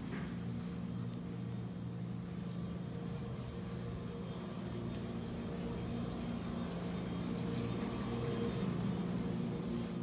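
Steady low machine hum made of several held tones, growing a little louder in the second half.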